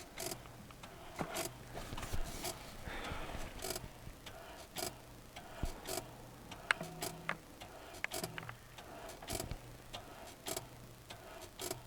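Renault Duster 2's clutch squeaking as the clutch pedal is pressed, heard at the clutch master cylinder under the bonnet as a string of short, sharp ticks at irregular spacing. It is a squeak that shows up once the car has been driven and warmed up, which the owner traced to a faulty clutch release bearing.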